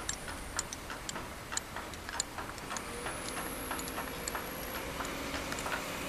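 Kobelco SK200 hydraulic excavator working, with its diesel engine running under a run of irregular sharp ticks and clicks. A thin whine rises in pitch about three seconds in as the loaded bucket lifts and swings.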